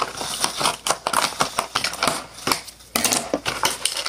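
Packaging being handled while a camera box is unpacked: a quick run of clicks, rattles and plastic-and-cardboard rustling, with a short pause about two and a half seconds in.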